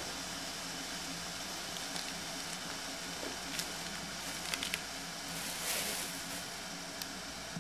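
Quiet dining-room hiss with a few small clicks of dishes or utensils at the table, a cluster of them about halfway through and one more near the end, and a short rush of noise near six seconds in.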